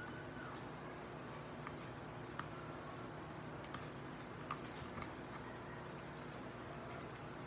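Faint scattered clicks and light taps from hands handling a wig on a mannequin head, about half a dozen over several seconds, over a steady low hum.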